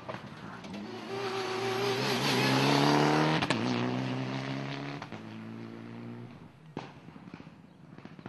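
Rally car passing at speed, engine revving up to its loudest about three seconds in. A sharp crack comes with a drop in pitch at a gear change, and the engine pitch steps down again as the car pulls away and fades. A sharp pop comes near the end.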